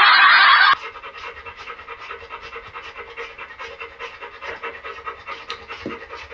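A loud rush of noise for about the first second, then a Labrador retriever panting rapidly and rhythmically.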